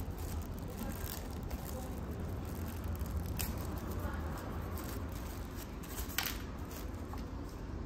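Small accessory packaging being handled and opened: soft rustling and scraping, with a sharp click about three and a half seconds in and another about six seconds in, over a steady low hum.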